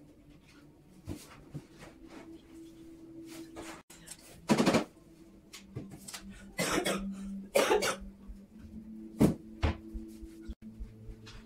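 A person coughing, four short harsh coughs a couple of seconds apart, over faint steady background sound.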